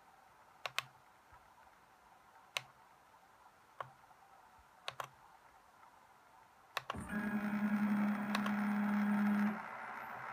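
A few sharp isolated clicks, then about seven seconds in the stepper motors of a CNC drawing machine start running with a steady pitched whine. The whine drops to a quieter level about two and a half seconds later.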